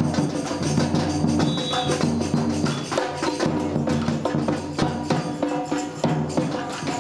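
Samba music with a steady beat: pitched instruments changing notes over busy hand percussion and drums.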